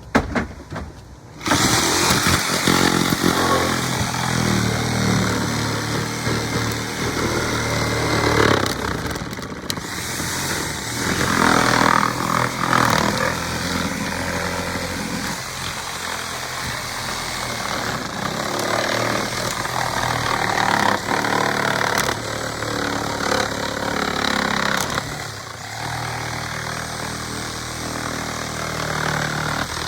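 Power saw running under load, cutting through the ceiling. The motor's pitch rises and falls as it bites, starting about a second and a half in.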